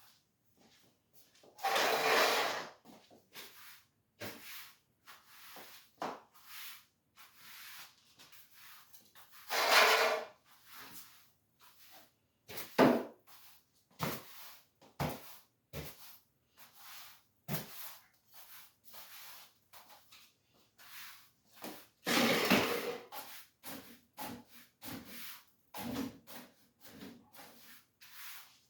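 Broom sweeping a kitchen floor: irregular brushing strokes and small knocks, with three louder scraping strokes about a second long, one near the start, one about a third of the way in and one past the middle.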